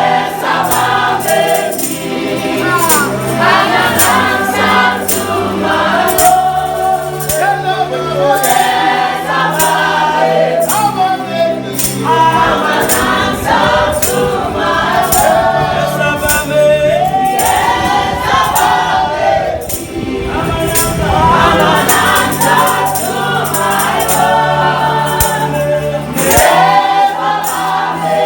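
A gospel worship song: a choir and congregation singing over a band with bass, keyboard and regular tambourine and drum beats.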